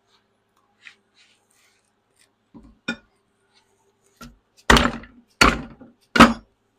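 A few light clinks of metal tools, then three hard hammer blows about three-quarters of a second apart near the end, knocking a stuck part of a skid steer's hydraulic control valve loose.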